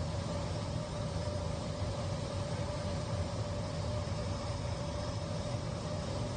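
Steady drone of an airliner cabin in flight: engine and airflow noise with a low rumble and a steady mid-pitched hum running through it.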